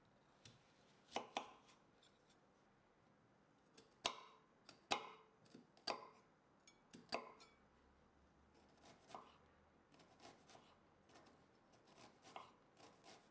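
Kitchen knife cutting a red onion on a bamboo cutting board: a few sharp knocks of the blade striking the board in the first half, then lighter, quicker taps as the onion is chopped.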